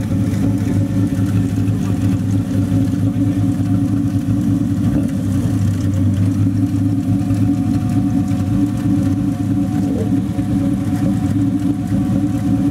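TVR Tuscan's straight-six engine idling steadily through its twin exhausts, a low, even note with no revving.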